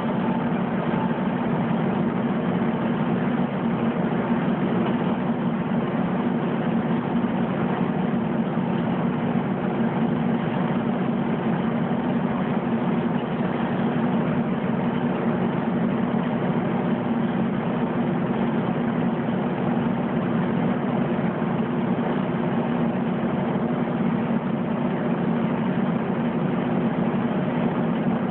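Washing machines running with a steady mechanical hum.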